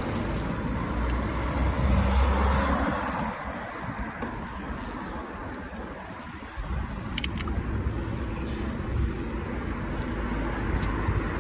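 Wind buffeting a phone microphone on a moving bicycle, mixed with road and car-traffic noise as a fluctuating low rumble. The rumble falls away about halfway through and comes back a moment later.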